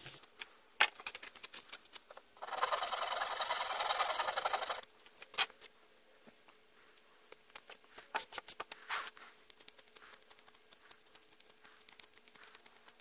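Knife blade scraping the end of a wooden hand-drill spindle: a rapid, chattering scrape lasting about two seconds, with a few light clicks and taps before and after.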